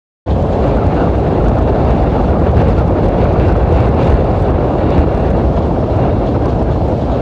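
Wind buffeting the microphone of a camera mounted on the roof of a moving car, mixed with the car's road noise. It is a loud, steady rumble that cuts in abruptly just after the start.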